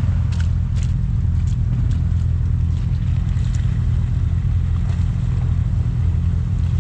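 Off-road vehicle engine running steadily at low revs, with a few faint clicks in the first few seconds.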